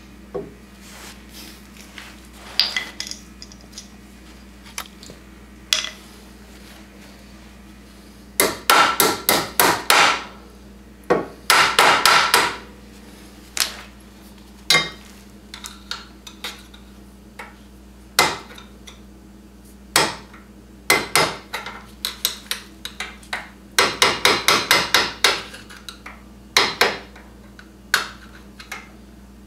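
Hammer blows driving a tight steel pivot bolt through the front lower A-arm of an Arctic Cat Wildcat Sport, with its new plastic bushings and sleeves. Quick runs of sharp metallic strikes with short ringing come three times, with single taps and pauses between.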